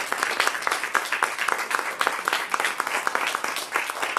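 Applause: several people clapping steadily.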